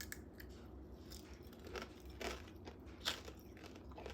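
Biting into and chewing a strawberry coated in a hard candied sugar shell (tanghulu), the shell cracking and crunching in a few separate crunches, the loudest about three seconds in.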